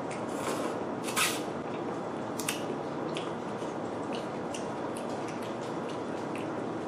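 Close-miked eating sounds: a short slurp about a second in, then scattered small wet mouth clicks while chewing, over a steady hiss of rain.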